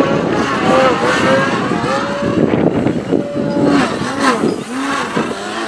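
Electric motor and propeller of a 54-inch Slick 560 aerobatic RC plane, its whine rising and falling with the throttle and swooping several times in quick succession about two thirds of the way through, over wind buffeting the microphone.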